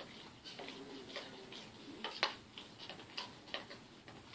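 A spoon stirring glue in a plastic bowl, with light, uneven clicks as it knocks against the bowl, the loudest about two seconds in.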